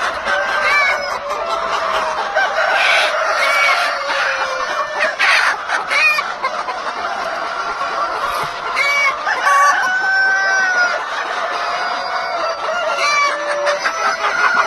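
A flock of chickens clucking and calling over one another in a dense, continuous chorus.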